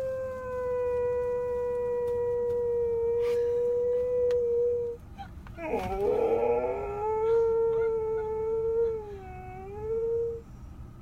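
Husky howling twice in long drawn-out howls: the first held on an almost steady pitch for about five seconds, the second starting rough, then wavering up and down for about five seconds. The dog is still groggy and vocal as the anesthesia from surgery wears off.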